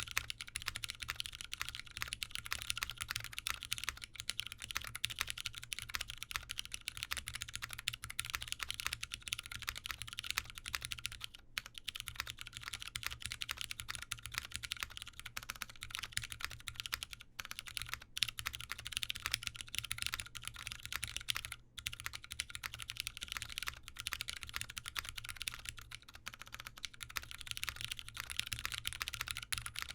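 Continuous typing on a Sun68 mechanical keyboard with lubed Cherry MX Brown Hyperglide tactile switches on a POM plate and GMK keycaps: a dense stream of keystroke clacks, broken by a few brief pauses. The owner finds the switches a tad scratchy.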